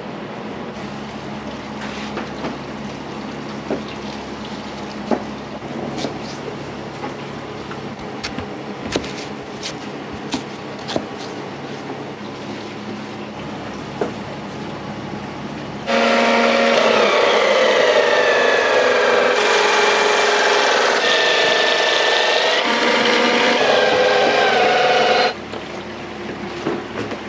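Restaurant kitchen clatter with scattered light knocks, then a loud machine starts suddenly and runs for about nine seconds with a steady squealing whine before cutting off abruptly.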